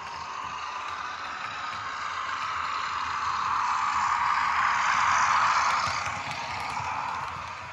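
OO gauge model diesel locomotive and its coaches running along the track: motor whir and wheels on the rails grow louder as the train passes close, loudest about five seconds in, then fade as it moves away.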